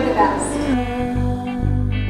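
Background music: held notes over a low bass line that changes every few tenths of a second.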